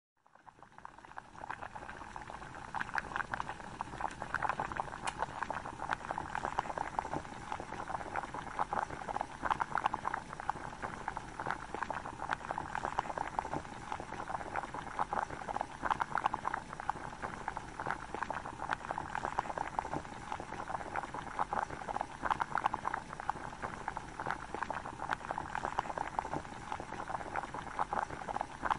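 Electrolysis rust-removal bath fizzing: gas bubbles stream off a rusty meat grinder part clipped to the current in a tub of water, giving a dense, steady crackle of popping bubbles. It begins abruptly and builds over about a second.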